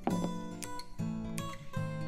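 Background music: a light acoustic guitar tune with strummed and plucked chords.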